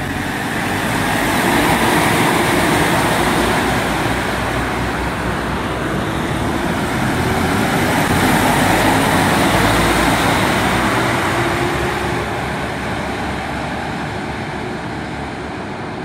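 Four-row corn harvester (4YZ-4Y) driving past with its harvesting system running: a loud, steady mechanical din of engine and harvesting machinery. It swells as the machine passes and fades over the last few seconds as it moves away.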